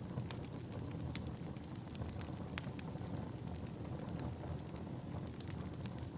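Fire burning in a fireplace, a steady low rumble with irregular sharp crackles and pops, a few of them louder, about a second and a half apart.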